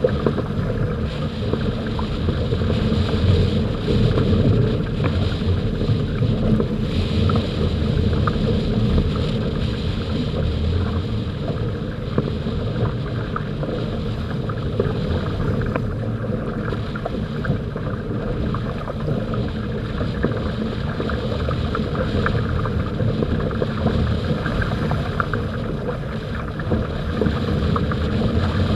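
Water rushing and splashing along the hulls of a Hobie Tandem Island trimaran sailing at speed, with steady wind buffeting the microphone.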